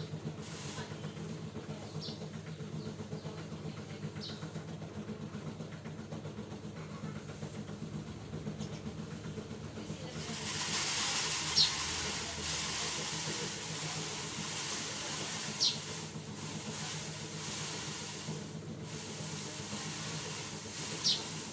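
A steady low mechanical hum, joined about halfway by a steady hiss, with a few short, sharp high-pitched squeaks over it.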